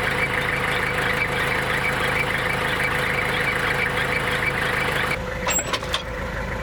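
Kubota tractor's diesel engine idling steadily, with a few clicks and a change in the sound near the end.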